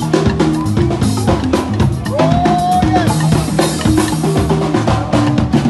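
Music with a drum kit and a stepping bass line, played at a steady beat, with a short gliding tone about two seconds in.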